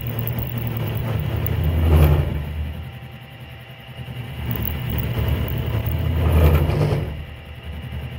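Milling machine's end mill cutting a slot in steel plate as the table is cranked by hand: a steady low, chattering hum that grows louder twice, about two seconds in and again near six and a half. This is a big vibration of unknown cause, which the machinist thinks may come from the whole machine jumping around on its casters.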